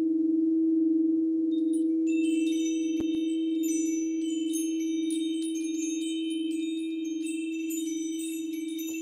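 A crystal singing bowl rings on in a steady low tone with a slow wavering, gradually fading. About two seconds in, hanging chimes stroked by hand add a shower of high tinkling notes over it.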